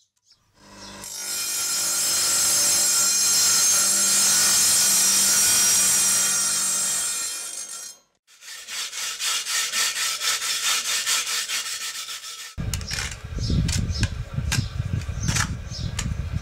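An electric tile saw runs steadily for about six seconds, cutting a concrete imitation-stone tile, then winds down. Then come rapid rough scraping strokes, and in the last few seconds heavier, deeper scraping as tile adhesive is spread on the back of a tile with a trowel.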